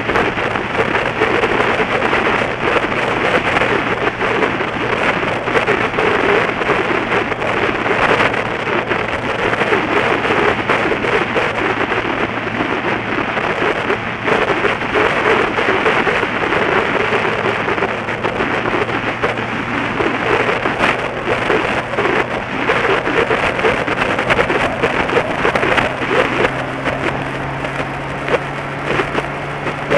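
Wind rushing and buffeting over the microphone of a motorcycle's onboard camera at road speed, with the bike's engine a low steady tone underneath that rises slightly in pitch near the end.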